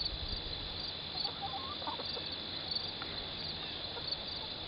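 Insects chirping: a steady high trill with short chirps repeating about every three quarters of a second. A few faint poultry calls come about one to two seconds in.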